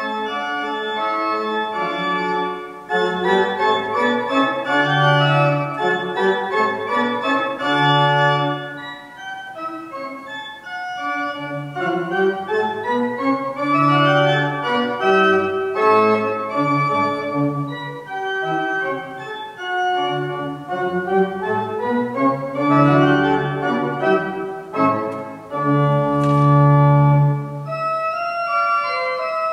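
Pipe organ playing with fast rising runs of notes over held low pedal notes.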